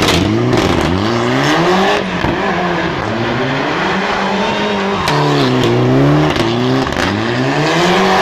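Turbocharged Mitsubishi Lancer Evolution rally car sliding through a tarmac corner, its engine revving up and dropping again and again as the driver works the throttle and gears, with a few sharp cracks.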